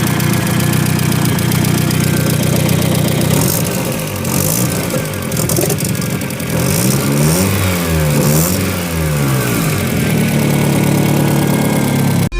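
Turbocharged VW Saveiro engine idling with lifter and valve ticking, revved up and down a few times in the middle. The tappet noise is the sign of a low oil level not reaching the top of the engine, which the owner cured by topping up the oil.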